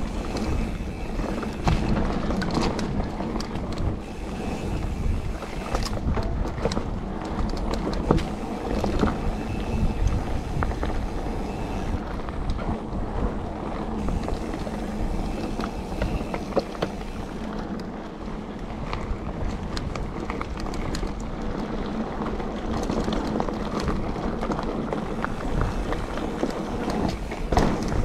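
Mountain bike being ridden along a woodland dirt trail: a steady rumble of knobbly tyres over the dirt, with frequent sharp knocks and rattles from the bike over bumps, and wind buffeting the microphone.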